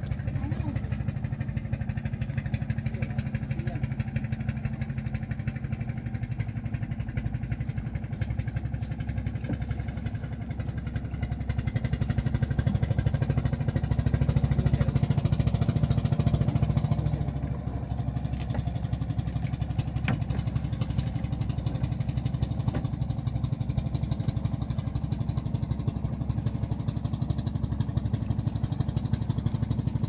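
A wooden fishing boat's engine running steadily with a fast, even chug, getting louder for a few seconds around the middle and then settling back.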